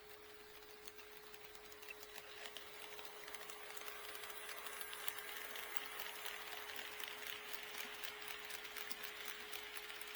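HO scale model train running on KATO Unitrack, its wheels rolling and clicking over the rail joints, growing louder from about two seconds in as it draws closer. A steady hum runs underneath.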